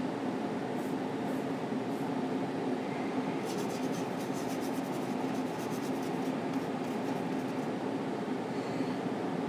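Steady room hum with a low drone underneath, and faint light scratchy ticks for a couple of seconds near the middle.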